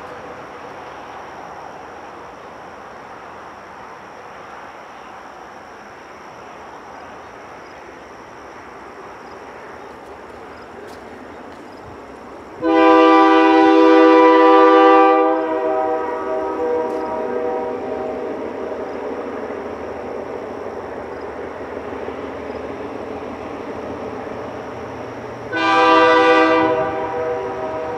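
Diesel freight locomotives, MLW RS-18s in the lead, running as the train approaches, with a long air-horn blast about halfway through and a second, shorter blast near the end. The engine sound grows louder after the first blast.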